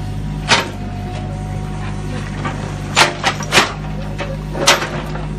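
Mini excavator's diesel engine running steadily while its steel bucket digs into brick and stone rubble, with sharp clattering knocks of broken bricks about half a second in and several more between three and five seconds in.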